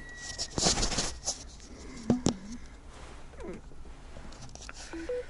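Rustling and handling noises inside a parked car, with a few clicks about two seconds in and two short beeps, rising in pitch, near the end.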